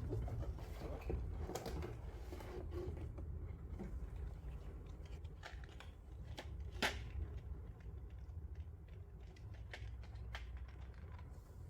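Light clicks and rustling from plastic keycaps and their packaging being handled, with one sharper click about seven seconds in, over a low hum.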